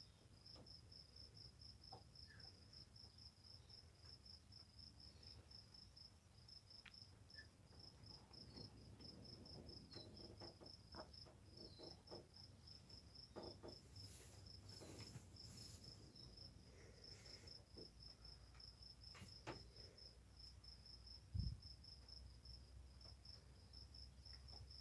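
Faint, steady chirping of a cricket, a continuous rapid high-pitched trill, with soft scratching and rustling of a lionhead rabbit digging in loose hay. One low thump comes about three-quarters of the way through.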